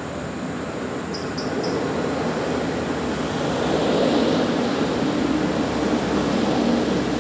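Steady rumble of a motor vehicle running nearby, growing louder, with a hum settling in near the end. Three short high chirps sound about a second in.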